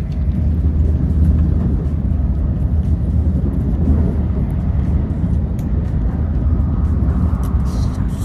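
Steady low rumble of a Shinkansen bullet train running at speed, heard from inside the passenger cabin, with a few faint light clicks.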